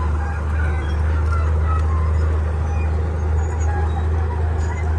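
Komatsu D31P bulldozer's diesel engine running steadily under work, a loud constant low drone.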